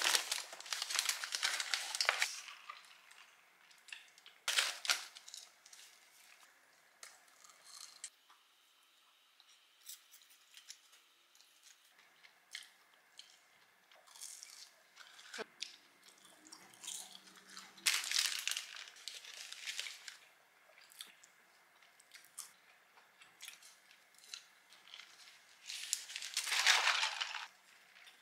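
Paper burger wrapper crinkling and rustling in several short bursts, with quiet chewing and bites of the burger in between.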